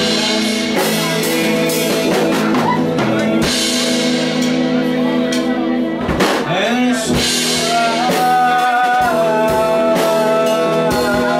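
Live band music: a man singing with guitar and violin accompaniment, with a long held note in the second half.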